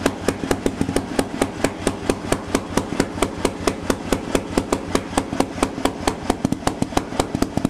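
1949 Fairmont railway engine, a single-cylinder two-stroke with a large flywheel, running steadily: a sharp exhaust bang on each firing, about five or six a second, some louder than others.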